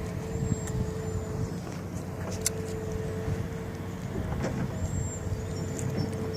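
A motor running steadily: a low rumble with a steady hum, and a few faint clicks over it.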